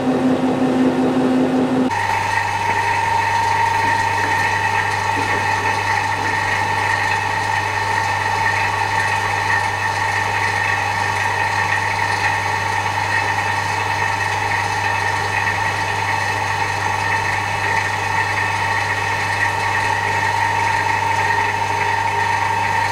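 Metal lathe running with a knurling tool against the spindle's bearing journal for about the first two seconds. The sound then changes abruptly to a steady machine hum with several held tones, which lasts the rest of the time.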